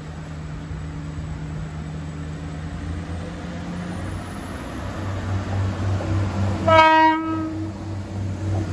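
Class 175 diesel multiple unit approaching along the platform, its diesel engines running and growing louder as it nears. It gives one short horn blast about two-thirds of the way through.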